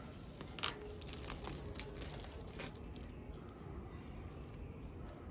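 Clear plastic protective layer being peeled off paint protection film on a motorcycle fuel tank, crinkling and crackling, with a few sharp crackles in the first three seconds.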